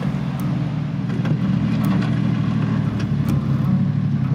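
A 660cc kei mini truck engine running at low revs as the truck crawls along a dirt trail in 4x4, with a steady low engine sound. A few short sharp clicks sit over it.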